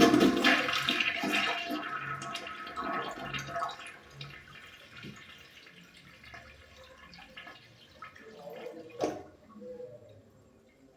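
Toilet flushing: a rush of water at the start that dies away over about four seconds. A single knock follows near nine seconds.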